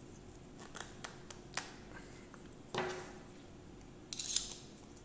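Steel gear puller being handled and its screw worked while pressing a turbomolecular pump's rotor off its shaft: a few light metal clicks, then one knock with a brief ring about three seconds in, and a short rapid rattle of clicks a little after four seconds.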